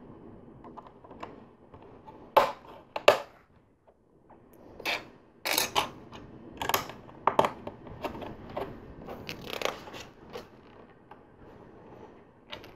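Plastic LEGO bricks and plates being pressed together and handled, giving a series of sharp clicks and snaps at irregular intervals.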